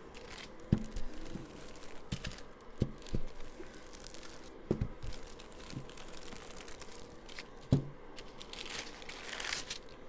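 Light knocks and crinkling rustles of hands working a sheet of air-dry clay with a small roller pin on a work surface, with a longer rustle near the end.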